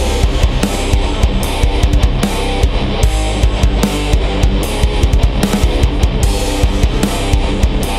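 Metalcore instrumental programmed in FL Studio Mobile: distorted electric guitars and a drum kit playing loud and dense, with many quick drum hits over a heavy low end.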